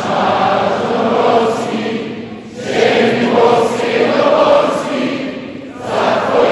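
Arena crowd of thousands singing together in long sustained phrases, with a brief dip about two and a half seconds in and another near the end.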